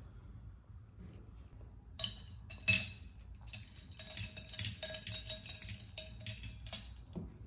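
Glass straw stirring ice cubes in a tall glass of iced drink: a couple of sharp clinks as it goes in, then a quick run of ringing clinks of ice against glass that stops just before the end.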